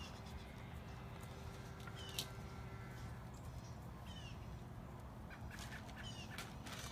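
Faint, short, high-pitched chirping calls, each falling in pitch, repeated several times a second or two apart over a steady low hum.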